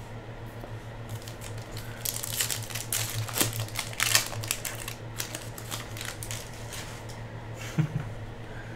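Foil wrapper of a trading-card pack crinkling and crackling as it is torn open, a burst of crackles from about two to five seconds in, then a single thump near the end, over a steady low hum.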